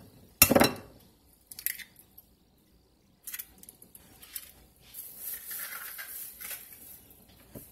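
An egg rapped sharply once on the rim of a stoneware bowl, cracking the shell, followed by softer clicks and rustling as the shell is pulled apart over the bowl.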